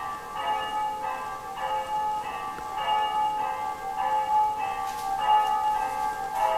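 A slow melody played on bell-like chimes, a new note about every half second, each note ringing on under the next.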